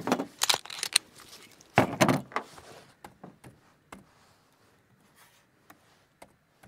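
A burst of sharp clacks and rattles of handling gear, loudest at the very start and again about two seconds in, then a few faint ticks.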